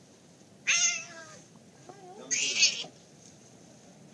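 A domestic cat yowling twice: loud, drawn-out meows about a second and a half apart. These are the distress cries of a cat caught by a boa constrictor.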